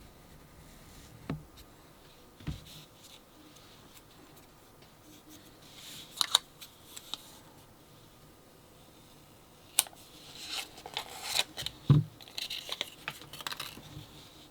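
Hands handling packaging and small plastic parts: two soft knocks in the first few seconds, then bursts of rustling and scraping with sharp clicks, busiest in the last few seconds.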